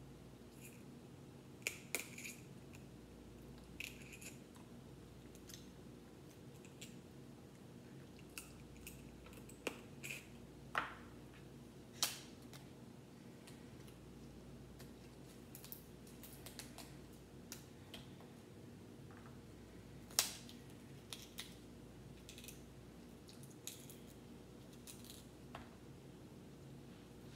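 Cooked crab-leg shells cracking and snapping as they are broken open by hand, in scattered sharp cracks, the loudest about twelve and twenty seconds in, over a steady low hum.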